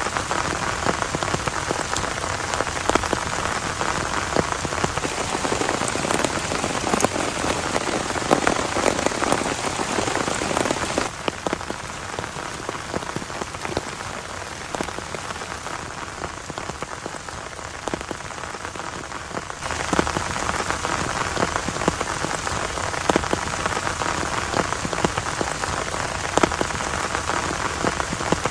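Heavy rain falling, a dense pattering of countless drops hitting a surface. A little over a third of the way in it turns abruptly softer for about nine seconds, then returns just as suddenly to full strength.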